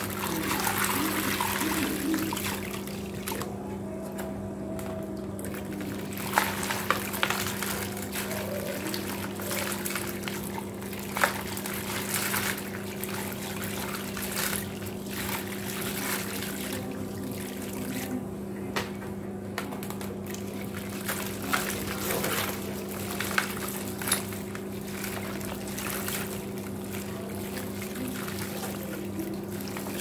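Wet, gritty white cement crumbling in a basin of water as gloved hands squeeze and drop handfuls: splashing and trickling with many short, sharp crunches and splashes. A steady low hum runs underneath.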